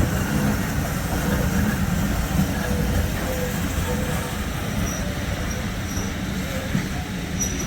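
Train moving on the rails: a steady rumble of running wheels and rolling stock, with faint wheel squeal coming and going.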